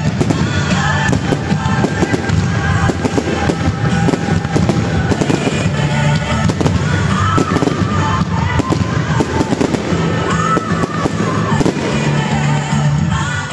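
Finale barrage of fireworks: aerial shells bursting in rapid, dense succession, loud enough to overwhelm pop music with a singer playing from a sound system.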